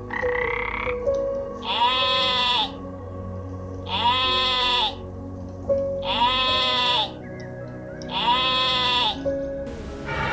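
An animal calling four times, about every two seconds, each call a pitched cry of just under a second that rises and falls, with a shorter call at the start, over soft background music.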